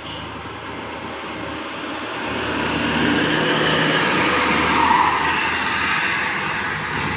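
A road vehicle passing close by: the noise of its engine and tyres builds, is loudest about five seconds in, then fades a little.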